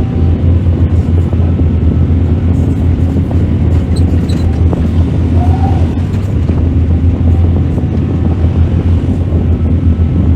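Mining excavator's diesel engine running steadily, a loud, even low drone.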